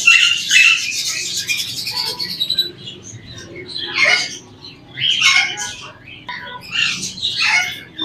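Parakeets squawking: a long, harsh, rapidly pulsing squawk over the first two and a half seconds, then three shorter harsh calls spread over the rest.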